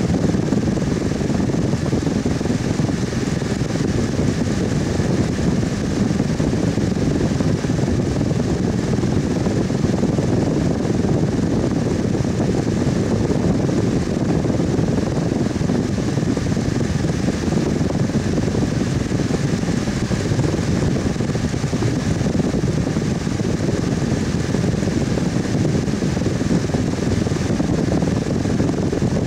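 Electric fan running steadily, a constant whooshing hum of moving air and motor without change.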